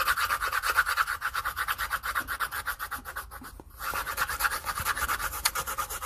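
Colored pencils scratching on paper in fast back-and-forth shading strokes, about ten a second. The strokes stop briefly about three and a half seconds in.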